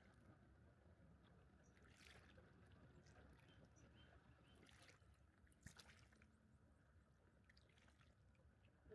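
Near silence: faint low background noise, with a few faint clicks or taps, one about two seconds in and another near the middle.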